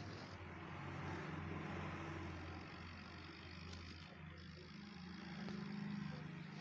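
Swaraj 855 tractor's diesel engine running steadily under way at low speed, its hum swelling slightly about a second in and again near the end.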